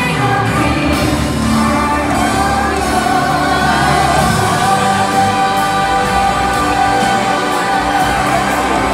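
A song with a singing voice and accompaniment, played over an arena's sound system for an ice show's skating number. About halfway in, one long note is held.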